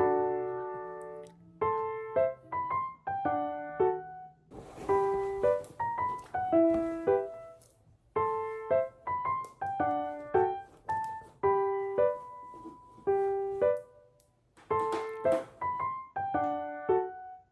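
Background piano music: gentle phrases of short notes that each fade away, with brief pauses between phrases.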